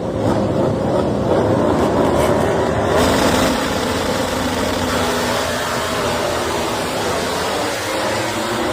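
MotoGP prototype motorcycle engine running at high revs down a straight, a loud, steady engine note.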